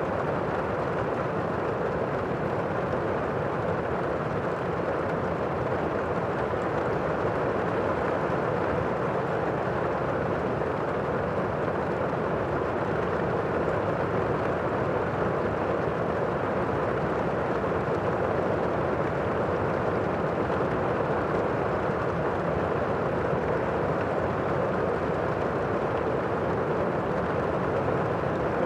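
Steady rain heard from inside a room: an even, dull hiss with little high treble and no separate drops or thunder standing out.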